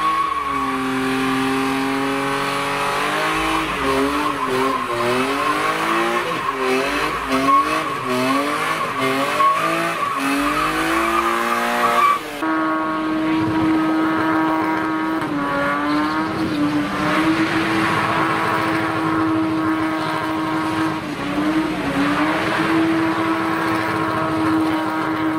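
Car engines revving hard with tyres squealing through drifts and burnouts. The engine pitch swings up and down repeatedly until a sudden cut about twelve seconds in. After that an engine holds high revs almost steadily, dipping briefly now and then, under continuous tyre squeal.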